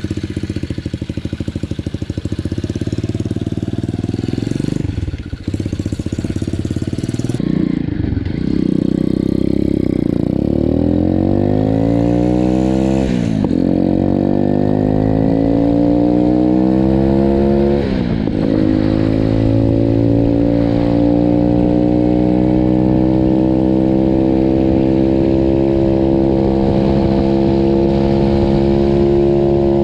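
Pit bike's single-cylinder four-stroke engine pulling away under throttle. The revs climb, drop sharply at gear changes about 13 and 18 seconds in, then hold high and slowly rising while cruising.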